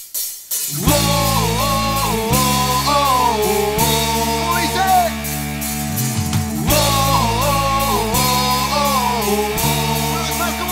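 Live ska-rock band with a trumpet, trombone and saxophone horn section, electric guitar, bass and drums kicking in under a second in. A melodic phrase plays over a steady beat and repeats about halfway through.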